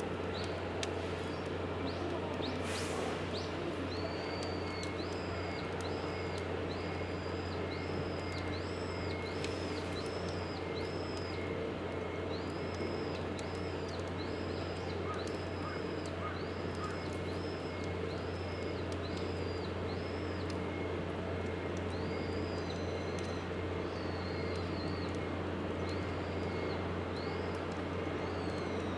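Wood fire crackling in a stainless-steel Winnerwell Nomad View stove, with scattered sharp pops, over a steady low rumble. A bird repeats a short high chirp a little more than once a second from a few seconds in, with a brief break about halfway.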